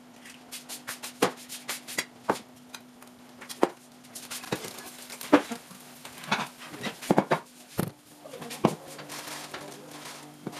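Kitchen clatter of eggs being cooked in a frying pan: a metal spatula knocking and scraping in the pan, heard as a string of sharp clicks and clacks, over a low steady hum.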